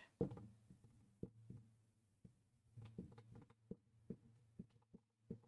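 Dry-erase marker writing on a whiteboard: a string of short, irregular taps and scratches as the strokes are made, over a faint steady hum.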